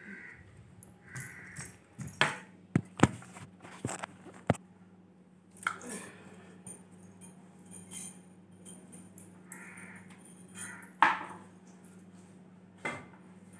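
A long-handled broom on a bamboo pole knocks and brushes against the ceiling and walls: a run of sharp knocks and clatters, loudest about eleven seconds in, with short rustling brushes between them over a steady low hum.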